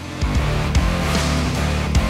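Background rock music with electric guitar and drum hits.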